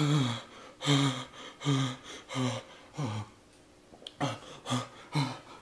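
A man panting out loud from the burn of a Paqui One Chip Challenge chip, a short groaning 'hah' on each breath, each one falling in pitch, about one every three-quarters of a second. They stop for a moment about three seconds in, a short click follows, and the panting starts again.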